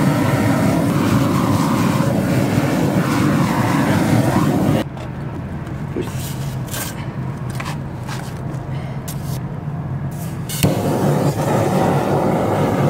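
Hand-held propane roofing torch running at a strong flame as it heats torch-down bitumen roofing. About 5 s in it drops to a much quieter hiss, with a few short scrapes of a trowel pressing the softened roofing, and the loud torch noise comes back shortly before the end.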